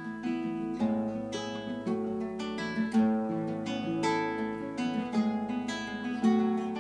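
Acoustic guitar playing a song's instrumental introduction: a continuous run of plucked notes and strummed chords.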